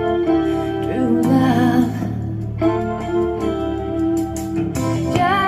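Music: a melody of held, slightly wavering notes, sung, over steady keyboard accompaniment.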